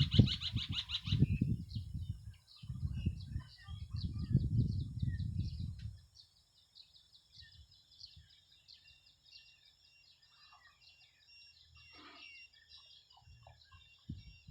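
Strong wind buffeting the microphone in deep gusts for about six seconds, then dying down. Faint bird chirps are left behind, with a pulsing high call at the very start.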